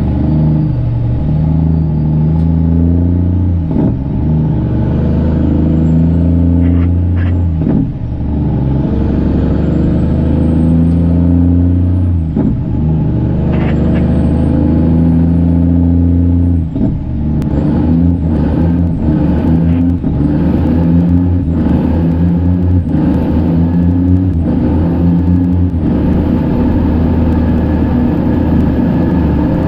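Straight-piped Cummins diesel of a Kenworth C500 winch truck pulling up through the gears. The engine note breaks and restarts about every four seconds, with a high whine rising in each gear. After about halfway it settles into a steadier, choppier run with many short knocks from the road.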